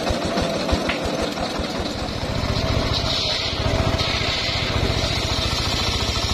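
Engine-driven homemade circular saw bench running. About two seconds in the engine's beat gets denser and heavier, and a high hiss of the blade cutting wood comes in as a log is ripped lengthwise.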